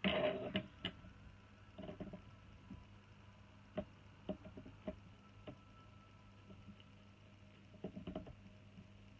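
Small clicks and light knocks from a circuit board being shifted on a table and a soldering iron tip touching it, loudest right at the start as the board is moved, with scattered taps after that. A low steady hum runs underneath.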